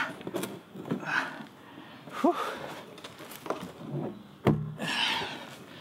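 A 3/4-inch PVC pipe being forced through a rubber Uniseal pipe-to-tank grommet in a plastic barrel, a really tight fit: short scrapes and rubbery squeaks, with a sharp knock near the end.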